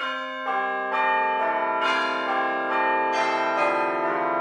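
Bell tones chiming a tune as background music, a new note struck about every half second while the earlier ones ring on over each other.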